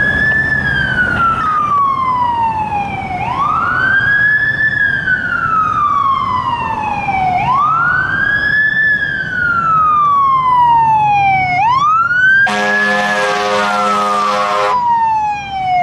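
Fire engine's siren on wail, each cycle rising quickly and falling slowly, about every four seconds. A horn blast of about two seconds sounds over it near the end.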